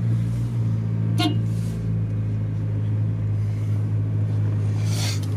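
Car engine idling steadily with a low, even hum, with a short sharp click about a second in.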